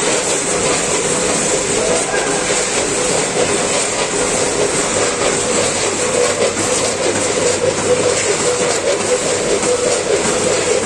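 Gantan GT14 SPA multihead weigher running with a Packit GT5S packing machine: a dense, steady clatter of small dry product pieces pouring through the weigh buckets and chutes, with gates clicking, over a steady machine hum.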